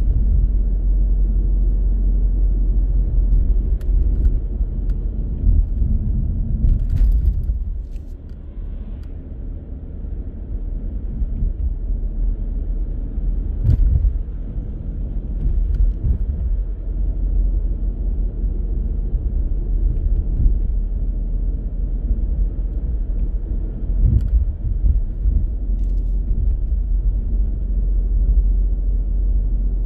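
Car driving on city streets: a steady low rumble of road and engine noise, easing off for a couple of seconds about eight seconds in, with a few short knocks.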